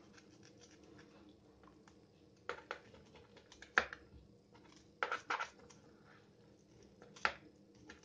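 Knife and fish being handled on a plastic cutting board while the fins are trimmed off a greenling: a few short knocks and scrapes, the sharpest just under four seconds in, over a faint steady hum.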